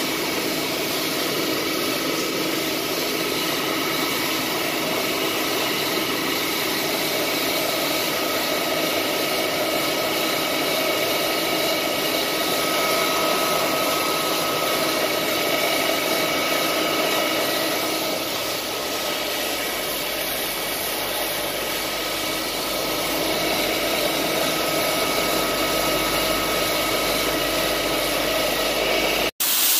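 A homemade grain loader running steadily, its motor humming with a few constant tones while grain pours into its hopper.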